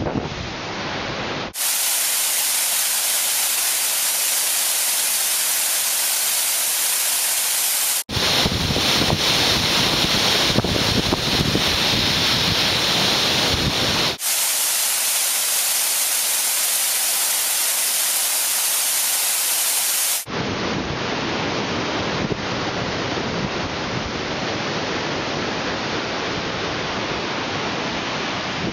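Mountain waterfall rushing and splashing right at the microphone: a loud, steady hiss of falling water. Its tone changes abruptly about every six seconds, turning thinner and higher for a few seconds at a time.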